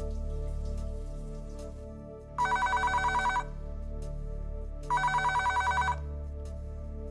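Landline telephone bell ringing twice, each ring a fast-rattling trill about a second long, the rings about two and a half seconds apart, over quiet background music.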